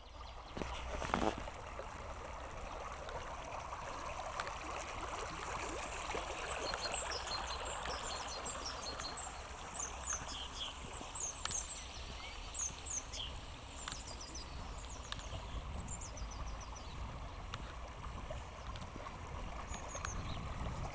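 Raw sewage gushing and bubbling up out of a road manhole: a steady rush of water, forced up by the sewer pump kicking in. Birds sing over it, and there is a brief thump about a second in.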